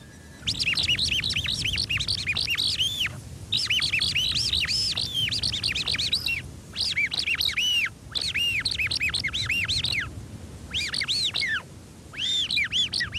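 High bird-like chirps in rapid runs, each note a quick rise and fall in pitch, several notes a second, broken by short pauses.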